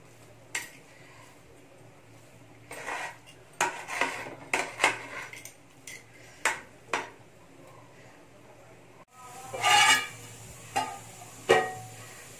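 A metal slotted spoon clinking and scraping against the side and bottom of a metal pot as biryani rice is stirred: a string of irregular clinks, with a louder clatter near the end.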